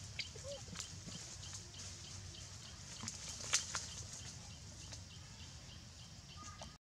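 Forest-floor ambience: a faint high chirp repeating about three times a second over a low steady background, with a few sharp clicks and crackles, the loudest about three and a half seconds in. The sound cuts out abruptly near the end.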